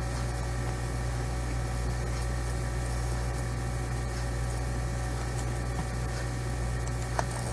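Steady low electrical hum with faint hiss and no distinct events, the background of the recording while no speech or lung-sound clip is heard.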